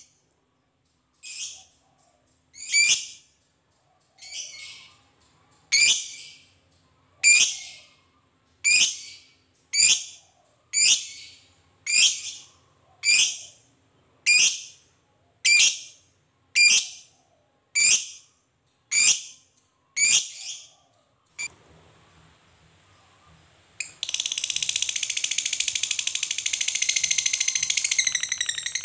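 Lovebird calling: a string of sharp, high single calls, about one every second and a quarter, then, near the end, breaking into a long, fast, continuous high-pitched chattering trill (the 'ngekek').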